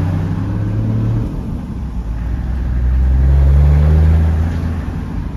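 Toyota Landcruiser 105 Series engine pulling away under load while towing, heard from inside the cab over road noise. The engine note drops about a second in, then climbs steadily in pitch and loudness and eases off near the end.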